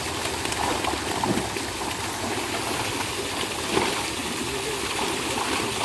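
Pond water splashing and churning as live fish thrash inside a drag net hauled into shallow water.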